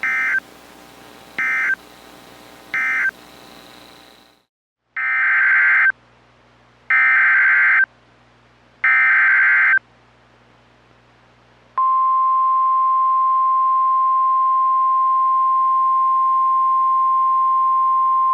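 NOAA Weather Radio Emergency Alert System tones: three short SAME digital data bursts (the end-of-message code closing one warning), a brief silence, then three longer SAME header bursts encoding the next warning. About 12 seconds in, the steady 1050 Hz weather radio warning alarm tone begins and holds.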